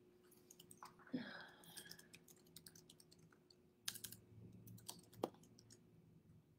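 Near silence: room tone with a faint steady hum, a brief faint murmur about a second in, and scattered faint clicks and taps, the sharpest about four seconds in and just past five seconds.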